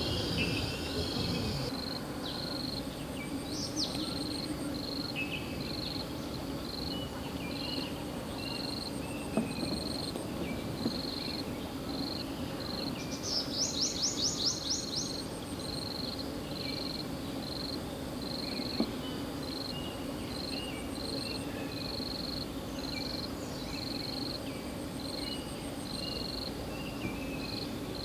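Forest ambience: a high chirp repeating about once a second, with scattered short bird calls and a brief rapid trill about halfway through, over steady low background noise.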